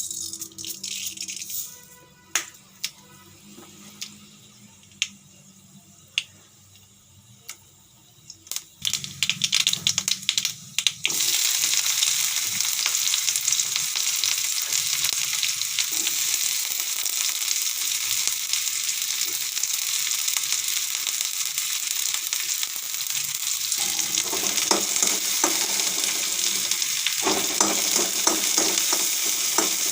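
Food frying in a hot pan: a few scattered taps and clicks, then a loud steady sizzle that starts suddenly about a third of the way in, as food goes into the hot oil. Near the end a spoon stirs and scrapes through it.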